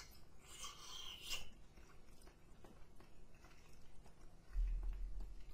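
Faint biting and chewing of a chicken wing close to the microphone, strongest in the first second and a half and then softer with small clicks. A low rumble comes in near the end.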